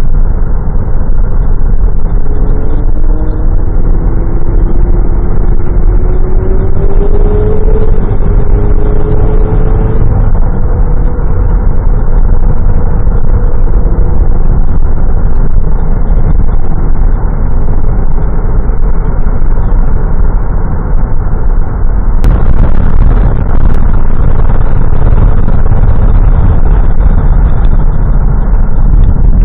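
Lotus Esprit driving at speed, with engine and road noise heard from inside the cabin. A few seconds in, the engine note climbs steadily for several seconds as the car accelerates.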